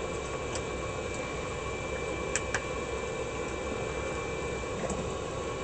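Steady background hiss, like a fan or room noise, with two faint light clicks a little over two seconds in.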